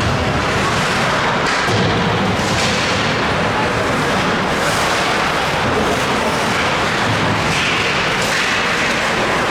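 Loud, steady din of an ice hockey game in play: crowd and rink noise.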